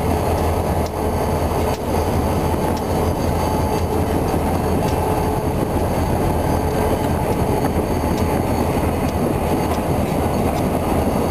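Diesel locomotives running as they roll slowly past, close by. Their engines make a steady low rumble, along with the sound of steel wheels on the rails.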